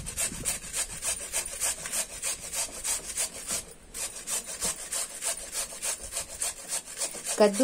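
Peeled white radish (mooli) being rubbed back and forth on a round stainless-steel hand grater: quick, regular rasping strokes, with a brief break a little past the middle.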